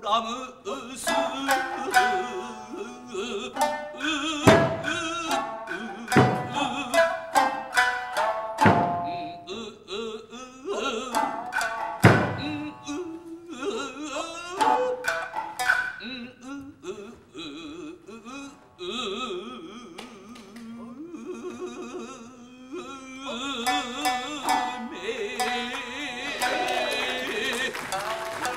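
Kiyomoto jōruri accompaniment for a Japanese classical dance: a narrator's sung voice with plucked shamisen, and four loud, sharp percussion strikes in the first half. The music thickens and holds steadier near the end.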